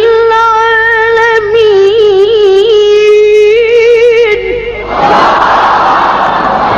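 Quran reciter drawing out the final syllable of a verse as one long melodic note, wavering in ornamental turns near the middle. About five seconds in, the voice stops and a live crowd takes over with loud, dense acclaim.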